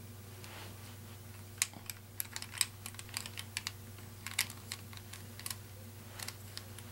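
Plastic Rubik's Cube pieces clicking irregularly as the cube is worked apart and pieces are pressed back in with a screwdriver. The sharp clicks start about a second and a half in and run on in uneven clusters over a steady low hum.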